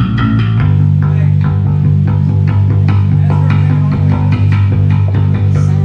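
Electric bass guitar played through a stage PA during a band soundcheck, holding low notes that change about half a second in, with guitar plucked over it.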